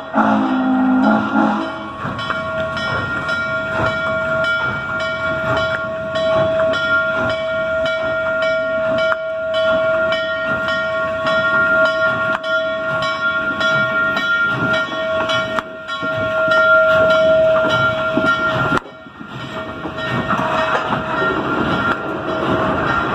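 Norfolk & Western 611, a J-class 4-8-4 steam locomotive, at work: its low whistle sounds for about a second and a half at the start. Then comes a long steady whine over rapid rhythmic knocking and steam noise, which changes abruptly about 19 seconds in.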